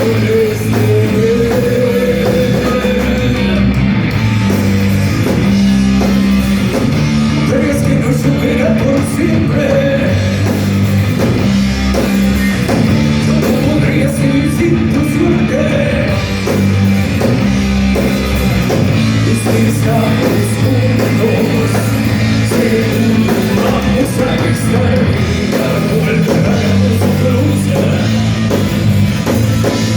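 Thrash metal band playing live at full volume: distorted electric guitars, bass and drums driving a steady riff, with a sung vocal line over it.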